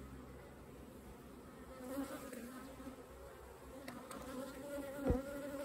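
A green metallic bee's wings buzzing as it takes off and hovers close by, a wavering hum that starts about two seconds in. A short thump near the end is the loudest sound.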